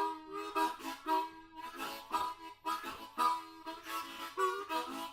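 Background music led by a harmonica, playing quick rhythmic notes.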